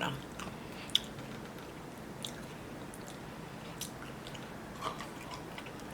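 A person chewing food close to the microphone, with a few short crisp crunches spaced out over the chewing.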